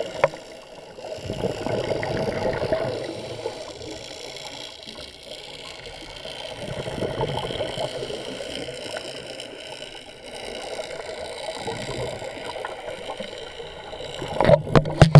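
Muffled scuba breathing heard underwater through an action camera's waterproof housing: regulator breaths and exhaled bubbles swelling and fading about every four to five seconds. Near the end, a run of sharp knocks.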